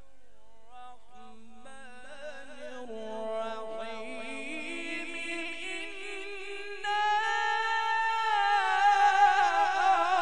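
A man reciting the Quran in melodic qirat style: one long sung phrase of held notes and quick ornamented runs that grows much louder about seven seconds in.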